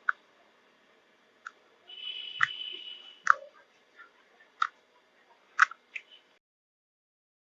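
Jelly slime being pressed and poked, giving about seven sharp wet clicks and pops spaced roughly a second apart, with a brief squishing noise about two seconds in.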